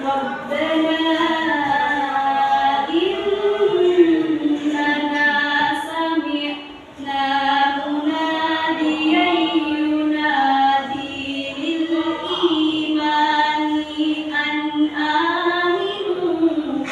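A young female voice reciting the Quran in the melodic tilawah style, holding long, wavering notes, with a short pause for breath about seven seconds in.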